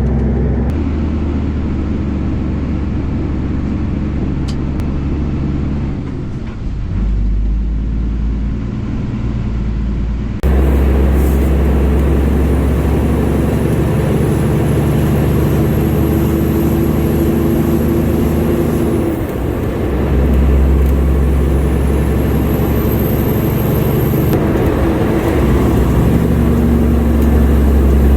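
Grain truck engine running steadily on the road, with a deep low drone and shifts in engine pitch as it changes speed, cut together from several short clips. A faint high whine rises twice in the second half.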